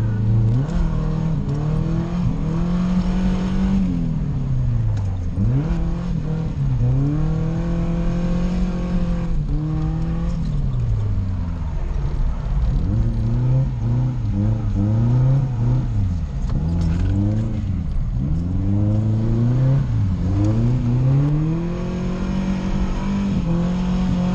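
Toyota 1UZ V8 swapped into a Nissan 240SX, heard from inside the cabin, revving hard through a drift run. The revs repeatedly climb, hold high, then drop and climb again, with deeper dips about five, ten and sixteen to twenty seconds in.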